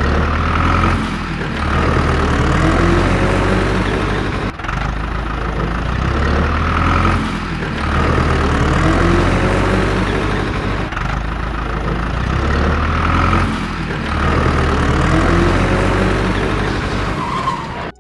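Tractor engine sound effect running and revving up and down in a repeating loop.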